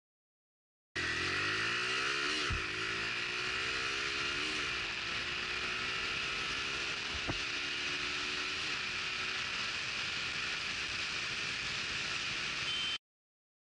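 Suzuki Gixxer single-cylinder motorcycle engine accelerating hard through the gears at full throttle, its note climbing steadily in each gear and dropping at three upshifts, over a steady hiss of wind and road noise. One sharp click is heard partway through. The sound starts about a second in and cuts off suddenly near the end.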